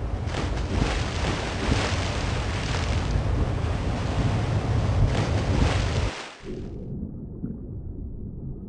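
Ocean surf: waves washing in and out in slow swells. About six seconds in it cuts off abruptly to a duller, muffled underwater rumble.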